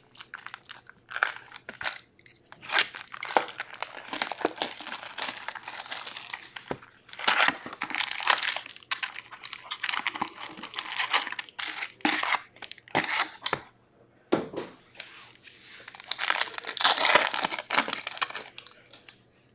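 Plastic wrap and foil trading-card packs crinkling as they are handled, in irregular bursts, with a foil pack wrapper tearing open near the end.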